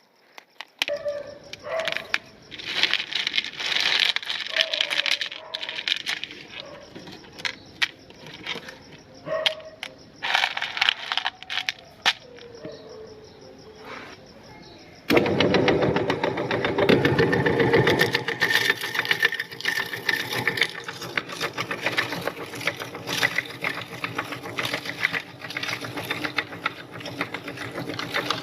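Irregular rustling and clattering, then an electric meat grinder starts abruptly about halfway through and runs steadily, with many sharp crackles over the motor as candy is ground.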